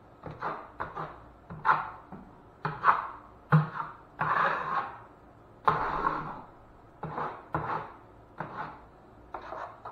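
Steel drywall taping knife scraping first-coat joint compound across a wall patch in a quick run of short strokes, two longer drawn-out passes near the middle.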